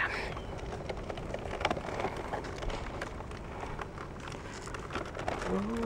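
Wind buffeting the camera's microphone outdoors: a steady rumbling hiss with faint ticks and crackles through it.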